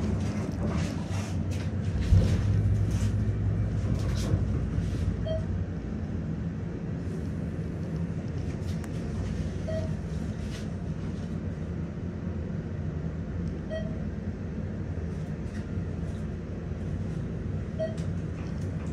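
ThyssenKrupp hydraulic elevator car travelling upward: a thump about two seconds in as it gets under way, then a steady low hum of the ride. A short soft beep sounds about every four seconds.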